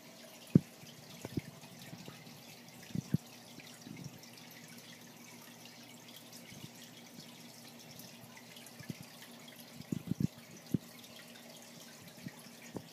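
Water trickling in a running aquarium, with irregular soft drips and plops, some in quick clusters, over a faint steady hum.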